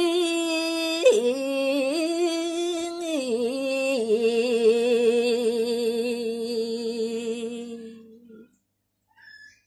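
A woman singing a Balinese gaguritan verse solo, unaccompanied, drawing each syllable out over long ornamented notes. The last note is held with a slow vibrato for about four seconds and fades out well before the end.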